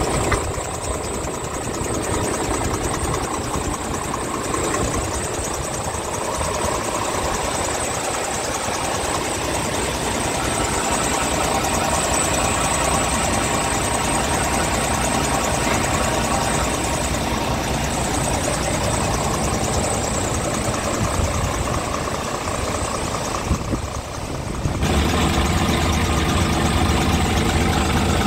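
Scania R tractor unit's diesel engine idling steadily. Near the end it becomes louder and deeper.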